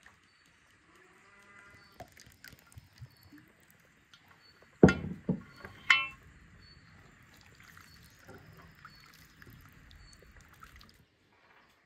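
A hand squelching and mixing a wet flour batter with sliced onions in an enamel basin, with a little liquid poured in. An animal calls loudly twice, about five and six seconds in, and birds chirp faintly.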